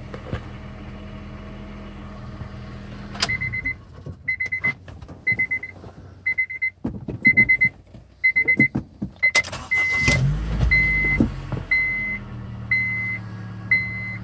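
Honda Civic Si engine running steadily, then stopping with a click about three seconds in. The car's warning chime then beeps about once a second, mixed with scattered clicks and knocks. Near the ten-second mark the engine starts and runs again while the chime keeps beeping.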